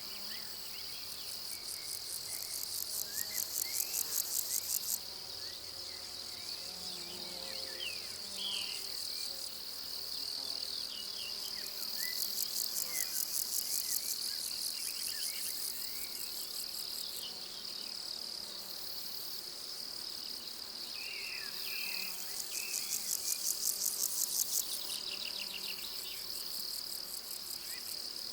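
Summer pasture insect chorus of crickets stridulating: a steady high trill with bouts of fast pulsed chirring that swell for a few seconds, several times over.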